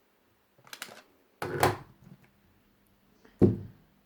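Plastic magnetic building tiles being handled and set down: a few light clicks, then a louder knock about a second and a half in and a sharp clack near the end.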